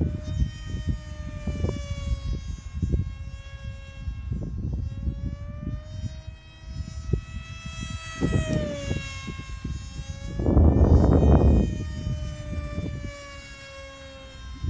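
Eachine Micro Skyhunter's electric motor and 6045 propeller making a steady whine in flight, its pitch wandering slightly up and down. A low rumbling noise runs underneath and is loudest about ten to twelve seconds in.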